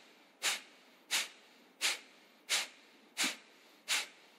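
Kapalbhati pranayama breathing: a man's sharp, forceful exhalations through the nose, six in an even rhythm of about three every two seconds, with quiet passive inhalations between.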